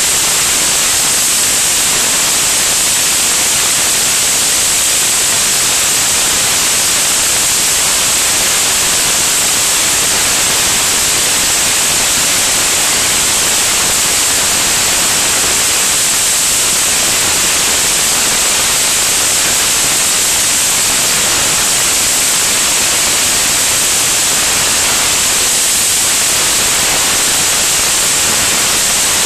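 Steady, loud rush of airflow on the microphone of a wing-mounted camera in flight. It is an even hiss, strongest in the high register, and no engine tone or other distinct sound stands out above it.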